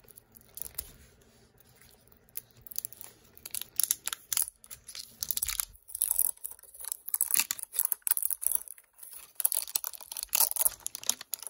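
Glittery film wrapper of a toy capsule ball being peeled and torn off by hand: irregular crinkling and tearing, sparse at first and busier and louder from about four seconds in.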